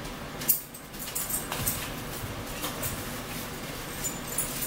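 Eating sounds close to the microphone: chewing with short wet mouth clicks and crackles, and one sharper click about half a second in.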